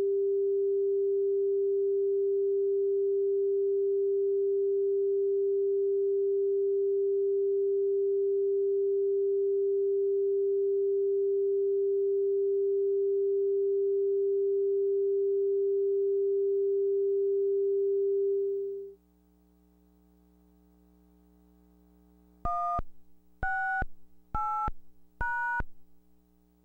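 Television line-up test tone: one steady pure tone that cuts off about 18 seconds in, leaving a faint low hum. A few seconds later come four short touch-tone (DTMF) beeps, each two pitches sounding together, about a second apart, like the control tones sent at a station's sign-off.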